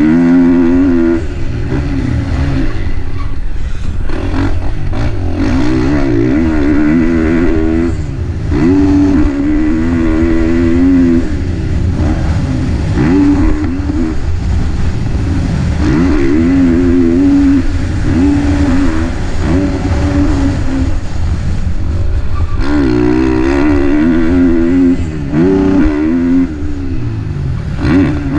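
KTM 450 four-stroke single-cylinder motocross bike engine being ridden hard: it revs up and backs off again and again, its pitch climbing and dropping through the gears.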